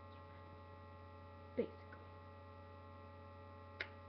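Steady electrical mains hum with a set of constant whining tones in the recording. About a second and a half in there is a short sound falling in pitch, and near the end a brief click.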